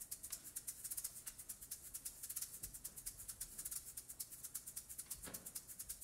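A hand-held shaker played softly on its own in a steady rhythm of about seven strokes a second. There is a soft low thump about five seconds in.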